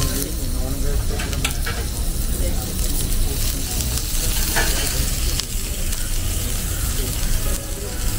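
Food sizzling on a hot ribbed steel griddle plate, a steady hiss, with a few light metal clicks from the cooking tools.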